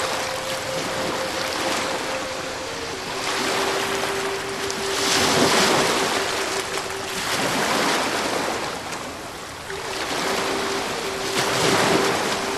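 Ocean surf washing in, swelling in several surges. Under it runs a steady held tone that steps down in pitch about three seconds in, drops out in the middle and returns.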